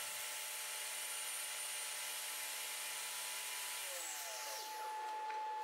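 Bench table saw running steadily, its blade being raised slowly up through an MDF zero-clearance insert and cutting its own slot. The tone shifts about four seconds in as the blade comes higher.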